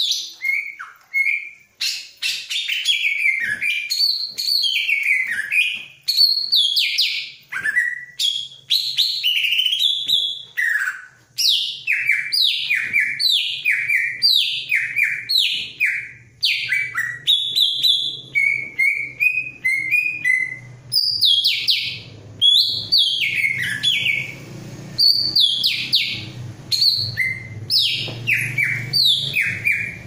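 A caged cucak ijo (green leafbird) singing a fast, nearly unbroken run of sharp, falling whistled notes and chatters, the excited song of a bird the keeper describes as in mating condition. A low steady hum sits underneath, louder in the second half.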